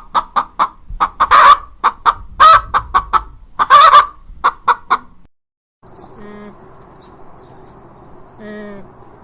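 A chicken clucking: a rapid run of short, loud clucks with a few longer calls among them. After a short break about five seconds in, it gives way to a quieter steady background with high bird chirps and a few short pitched calls.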